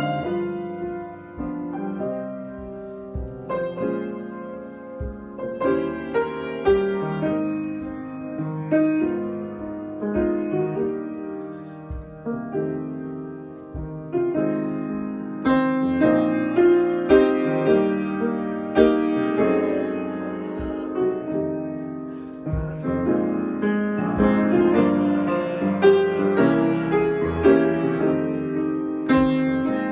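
Solo piano improvisation: chords and melody notes struck and left to ring, growing louder and fuller about halfway through.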